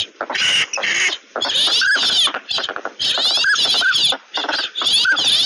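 A flock of northern pintails calling, with short rising-and-falling whistles repeating over a dense, raspy chatter of quacks and calls.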